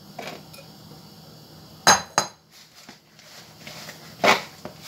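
A glass bowl knocking against the rim of a plastic mixing bowl as it is tapped empty: a few sharp knocks and clinks, two of them close together about two seconds in, one more near the end.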